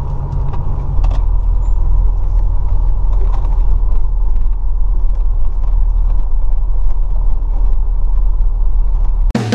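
Motorhome engine running with a steady deep rumble heard from inside the cab as the coach rolls slowly and turns, with light creaks and ticks from the coach. Drum music cuts in right at the end.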